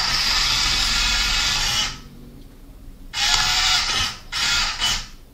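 Electric drive motors of a small homemade tracked robot whirring as it drives on its tracks. The sound runs steadily for about two seconds, stops for about a second, then comes back in three short bursts as the robot starts and stops.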